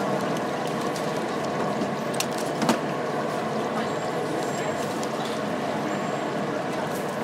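Steady din of a busy city street, passing traffic mixed with the murmur of a crowd, with a couple of sharp clicks near the middle.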